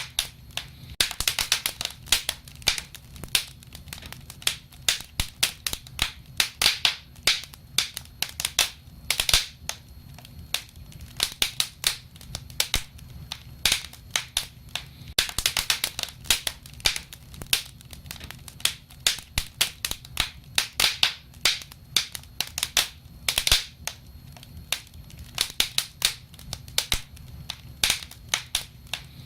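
Wood fire crackling: irregular sharp pops and snaps, often in quick clusters, over a low steady rumble.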